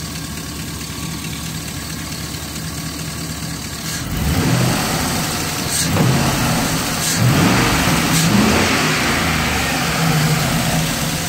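Chevy Express van's V8 engine idling steadily, then revved in several throttle blips from about four seconds in, easing back toward idle near the end. The revs are to bring out the van's random misfire, which the scan tool then logs on cylinder 6.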